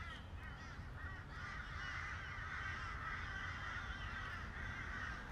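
A flock of birds calling together, many short overlapping calls forming a dense chattering chorus that grows fuller about a second in.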